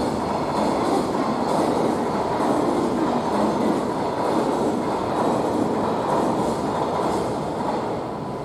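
Manyosen streetcar running on its street track: a steady loud rumble of steel wheels on rail, easing a little near the end.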